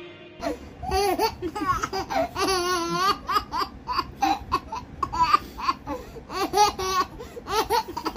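Baby laughing: a string of short high-pitched giggles with a few longer, wavering laughs.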